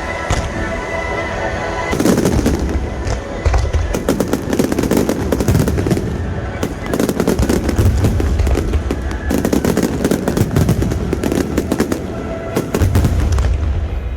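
Fireworks going off in a dense, rapid string of bangs and crackles with deep booms, starting about two seconds in. Music plays underneath at the start.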